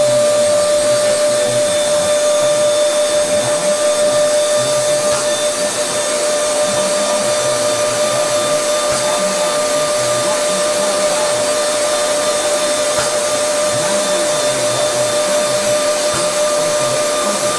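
Steady, loud machine noise: a continuous rushing hum with a constant whine running through it.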